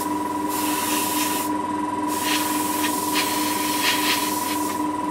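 Airbrush spraying paint in two bursts of hiss as the trigger is pressed and released, the first about a second long and the second nearly three seconds, over a steady motor hum.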